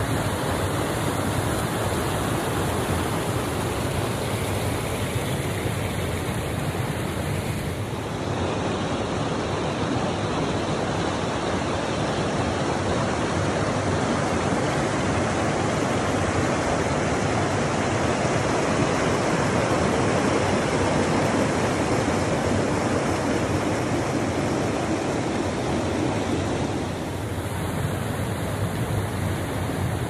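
Mountain stream rushing over rocks in small cascades: a steady rush of running water.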